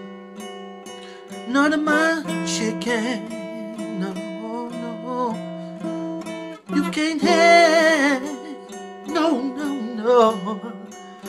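A man singing to his own acoustic guitar accompaniment, his voice sliding and wavering over held chords, with a long quavering held note about two-thirds of the way through.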